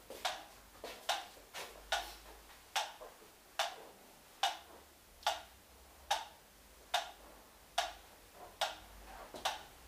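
Sharp, regular ticking, a little faster than one tick a second, with a few uneven ticks in the first couple of seconds before it settles into a steady beat.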